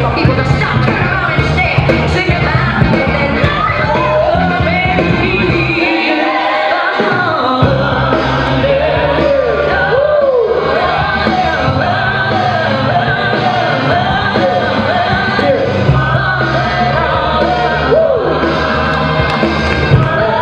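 Music with a sung vocal over a heavy bass beat. The bass drops out about six seconds in and returns a second and a half later.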